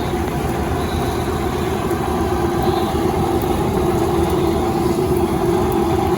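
A steady, loud mechanical drone with a held low hum, like an engine idling, over street noise.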